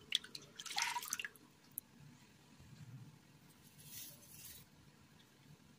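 Milk poured into a ceramic bowl, splashing and dripping for about the first second. Around four seconds in comes a brief soft hiss as a fine dry ingredient is poured into the milk.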